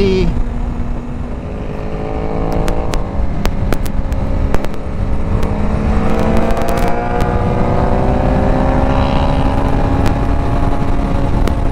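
Sport motorcycle engine under way, pulling up through the revs with a pitch that climbs over several seconds and then holds steady, under a heavy low wind rumble on the microphone. Scattered sharp crackles from the microphone in the first half.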